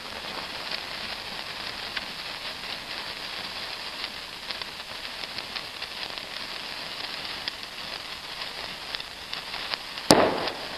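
A firework fountain burning with a steady fizzing crackle of many fine pops. About ten seconds in comes one sudden sharp crack and a short loud rush.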